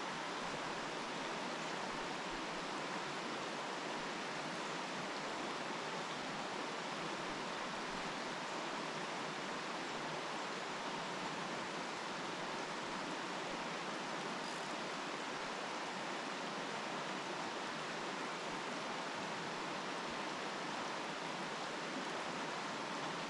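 A mountain stream rushing steadily, an even, unbroken wash of water noise.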